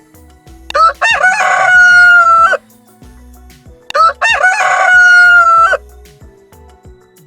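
Rooster crowing twice, two long cock-a-doodle-doos about three seconds apart, over quiet background music with a steady beat.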